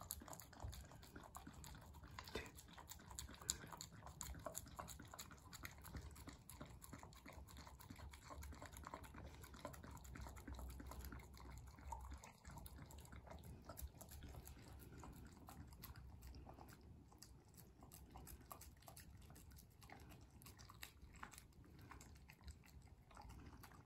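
A beagle licking a plate and chewing its food: faint, closely repeated small wet clicks and smacks.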